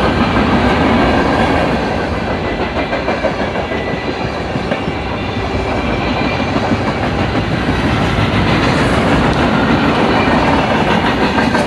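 Freight cars of a Norfolk Southern mixed freight train rolling past close by: a steady rumble of steel wheels on rail with a running clickety-clack over the rail joints, as covered hoppers and tank cars go by.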